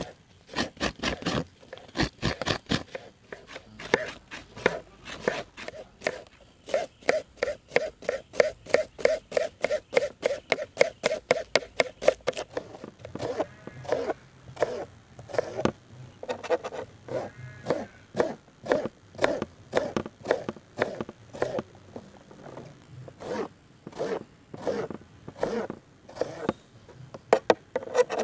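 Rhythmic rasping strokes of a coconut half being scraped against the serrated blade of a coconut scraper, about three to four strokes a second. Later comes a knife chopping onions on a plastic cutting board in quick, uneven strikes.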